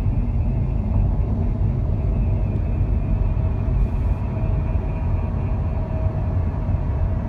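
Cabin noise of an Audi A4 Avant (B9) at highway speed: steady low road and wind rumble with a faint, steady whine above it. This is the car's high-speed abnormal noise, whose cause a dealer could not find.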